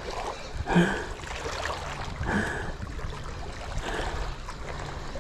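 Sea water lapping and washing over shoreline rocks under a steady low rumble, with a short breathy sound repeating about every second and a half.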